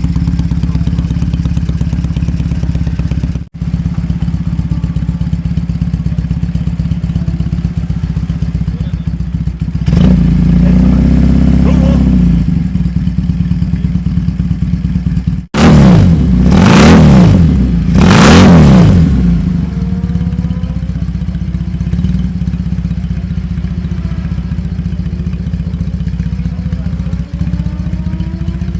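BMW 1000cc boxer twin engine of a 1970s kneeler racing sidecar, running at a steady idle and blipped: one rev about ten seconds in, then two sharp revs in quick succession past the middle, each rising and falling, before it drops back to idle.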